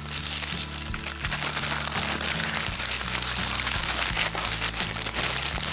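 Paper packaging crinkling and rustling as it is handled, over background music with a low bass line.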